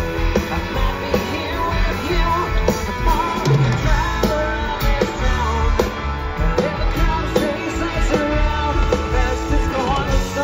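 Live rock band playing through a festival PA: electric guitars, bass and drums with a man singing lead vocals.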